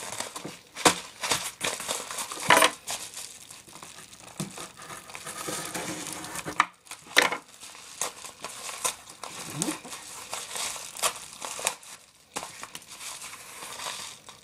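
A mailed package being cut and torn open and its wrapping handled: packing material crinkling and rustling, with irregular sharp clicks and crackles.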